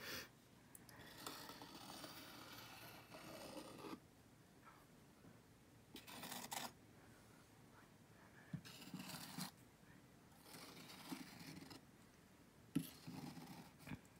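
Metal palette knife scraping and spreading wet paint across a stretched canvas, in about five faint strokes with short pauses between.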